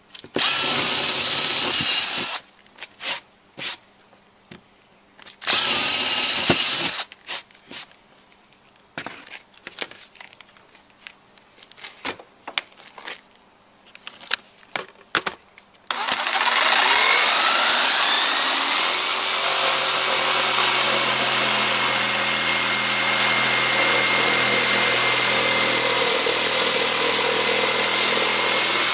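A cordless drill boring a starter hole through an OSB board in two short runs, followed by a few clicks and knocks. About halfway through, a jigsaw starts and cuts a circle in the OSB, its whine rising as it speeds up and then holding steady.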